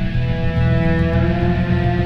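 Background music: several long held tones over a low, pulsing bass.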